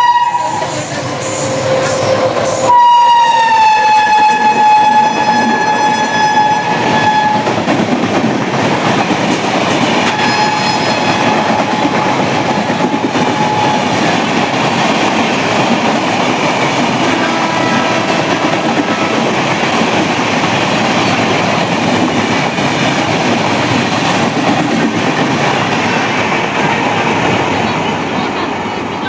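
Indian Railways train passing with a steady rumble and clatter of wheels on the track, loud throughout. Its horn sounds in a long blast about three seconds in, dropping in pitch as the train goes by, and again more faintly in the middle. A horn blast is just ending at the very start, and the rumble eases near the end.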